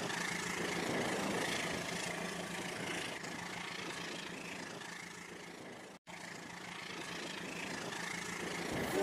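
Rail King toy train running along its track: a steady motor hum with wheel rattle that fades, cuts out for an instant about six seconds in, then grows louder again.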